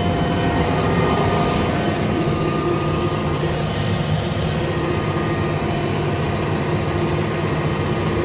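Tractor engine running steadily under load while pulling an air seeding drill through a field, with a thin steady whine over the low hum, heard from the cab with the window open.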